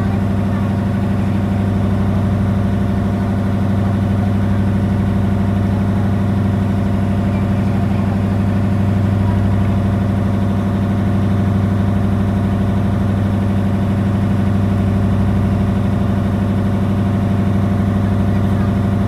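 Boat engine running steadily underway, a low hum that holds one pitch, with the wash of water from the wake.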